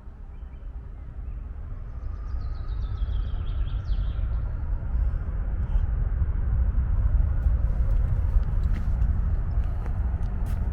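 Airplane accelerating down a runway on its takeoff roll, heard as a low rumble that grows steadily louder. A bird chirps a few quick descending notes about two seconds in.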